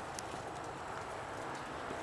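Snow crunching under a bulldog's paws and a person's feet as they scuffle in play, with a few sharp crunches, the clearest about a quarter-second in.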